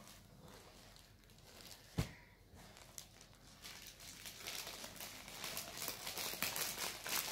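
A single sharp thump about two seconds in. Then, from a little before halfway, thin plastic crinkles and crackles more and more loudly as a folded silk saree is pushed into its clear plastic cover.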